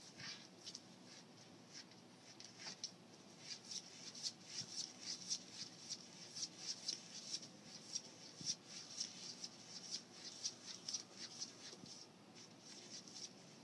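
Kitten pawing and scratching at a cabinet door: quick, light, irregular scratches, several a second, that thin out near the end.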